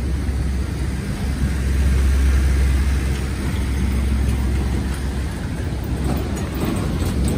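Piaggio Porter small flatbed truck driving slowly past at close range, its engine running with a low rumble that is loudest about two to three seconds in.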